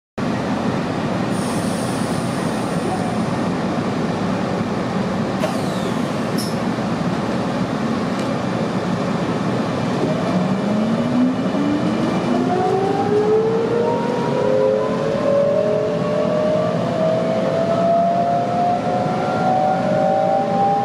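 Sydney Trains M-set electric train heard from inside the carriage: a steady hum while standing, then from about halfway a rising whine of the traction motors as the train pulls away and picks up speed, levelling off near the end.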